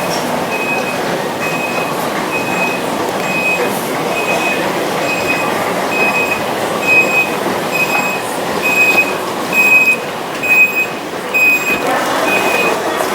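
A high electronic warning beep repeating evenly about twice a second over the general hubbub of an airport terminal, with a few irregular knocks and clatters near the middle.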